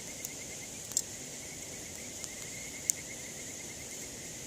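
Insects chirping: a steady high insect drone with a fast, regular cricket-like trill running under it. A couple of sharp pops from the campfire cut in about one and three seconds in.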